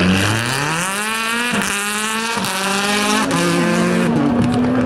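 Skoda Octavia rally car accelerating hard. Its engine note climbs for about a second and a half, then steps through gear changes and holds steady pitches as the car pulls away.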